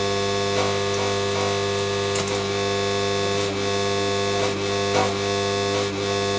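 Background music: steady, sustained synth-like tones held throughout.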